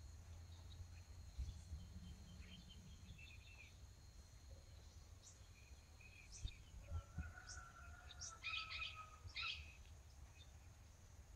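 Faint rainforest ambience: a steady high-pitched insect drone with scattered short bird chirps, and a brief flurry of louder bird calls about eight to nine seconds in.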